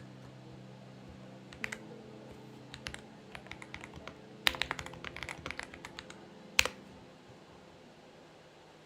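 Typing on a Xinmeng X98 mechanical keyboard. A few scattered keystrokes come first, then a quick run of typing about four and a half seconds in, ending with one louder single key press.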